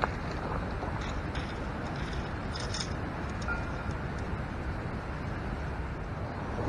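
Steady low rumbling outdoor background noise, with a few faint light clicks and a brief rustle partway through.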